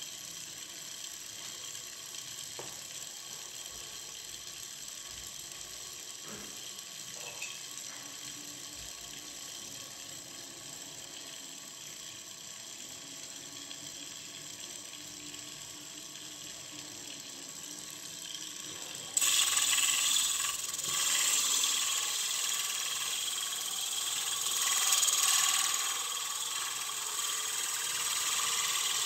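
Homemade rotary sander, a 24 V DC reverse-osmosis pump motor spinning a sanding disc, running steadily. About nineteen seconds in, a block of wood is pressed against the spinning disc and a much louder, rough sanding noise takes over.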